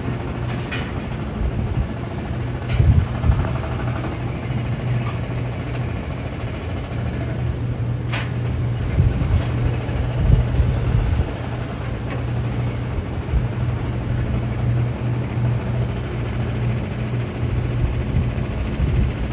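Steady low machinery hum with a constant pitch, broken by a few sharp clicks in the first half.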